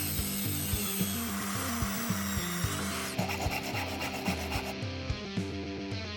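Background music with a steady bass line and a beat. For the first half a loud rasping hiss sits over it, then drum-like hits come through more clearly.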